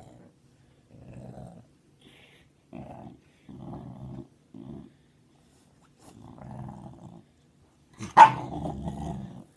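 A puppy growling in a string of short, low grumbles as it is woken and picked up, ending in a sharper, louder bark-like outburst about eight seconds in.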